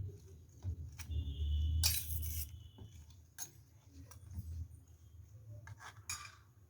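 A spoon clinking and scraping against a bowl while beaten eggs with chopped onion, green chilli and coriander are mixed: a few scattered clinks, one left ringing for about two seconds a second in, and a longer scrape around two seconds in.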